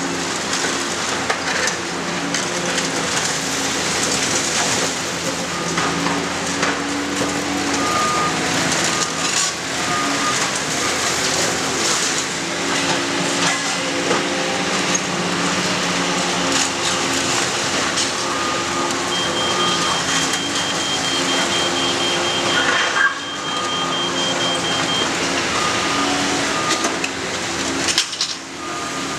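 Demolition machinery at work: the diesel engines of a hydraulic excavator and a skid-steer loader run steadily while the excavator's demolition grab crunches and tears at building debris. Reversing alarms beep on and off, with a faster, higher beeping for several seconds in the second half.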